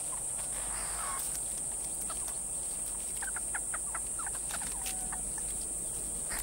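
Meerkats giving short, high chirping calls, a quick run of them in the middle, over a steady high-pitched hiss.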